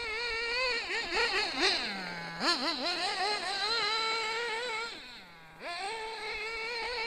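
Hobao Hyper 7 1/8-scale nitro RC buggy engine buzzing at high revs, its pitch wavering as the throttle is worked. It drops to a low idle twice, about two seconds in and about five seconds in, then revs back up.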